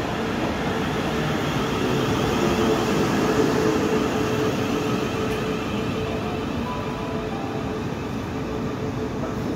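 South Western Railway Class 450 Siemens Desiro electric train running into the platform and slowing as its carriages pass: a steady hum over the rumble of wheels on rail, loudest a few seconds in.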